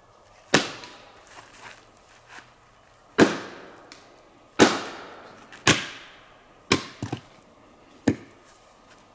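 Axe splitting firewood on a chopping stump: six sharp woody chops at irregular intervals, each blow ringing briefly.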